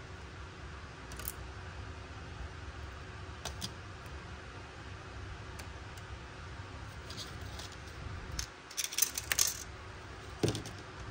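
Small plastic clicks and taps of tweezers and tiny toy food pieces against a miniature plastic plate and tub, with a quick flurry of clicks about nine seconds in.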